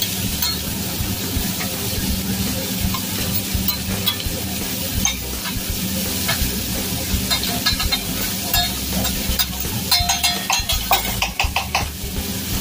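Shrimp, scallops and vegetables sizzling on a steel hibachi griddle, with a metal spatula and fork scraping and tapping on the hot plate. A quick run of metal clicks and clatter comes near the end.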